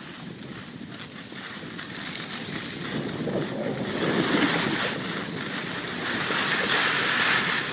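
Skis or a board sliding down a groomed run: a steady rushing hiss and scrape of edges on packed snow, with wind on the microphone. It grows louder from about two seconds in.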